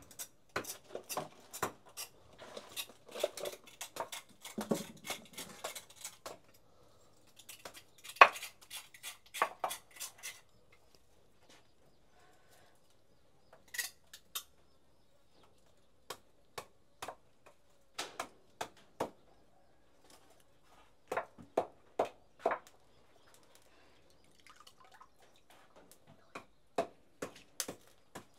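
Knife work on roasted salted hide and a wooden chopping block: a cleaver scraping the charred skin off, with quick sharp taps and knocks. The knocks come thick for the first ten seconds or so, then scattered single knocks with pauses between.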